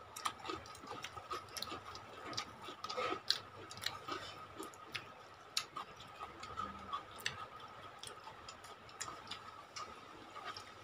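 Irregular small wet clicks and smacks of people chewing and eating rice and chicken curry by hand, over a faint steady high-pitched whine.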